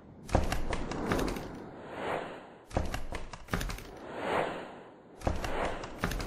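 Repeating whoosh and impact effects: a cluster of rapid clicks and thuds about every two and a half seconds, each followed by a whoosh that swells and fades.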